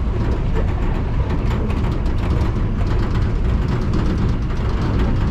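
Steady rumble of a motor vehicle driving, engine and road noise heard from on board, with light rattling and knocks from the rough track.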